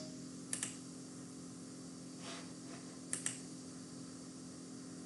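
Quiet room tone with a steady low hum, broken by a few soft computer-mouse clicks: one about half a second in and a quick pair a little after three seconds.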